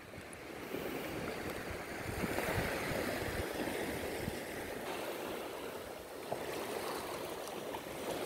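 Small sea waves washing and lapping over a rocky reef flat at the shoreline: a steady rushing that swells a little about two seconds in.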